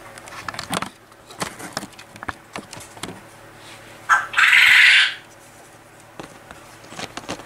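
Kittens scuffling on a concrete floor: scattered light taps and scrapes from paws and bodies. About four seconds in comes a loud, harsh, noisy burst lasting about a second.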